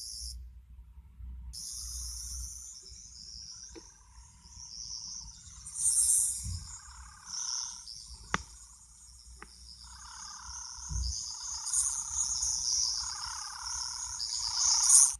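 Toy Tenth Doctor sonic screwdriver playing its high-pitched electronic warbling sound effect through its small speaker. It runs almost without a break after a short gap near the start, with a few sharp clicks along the way.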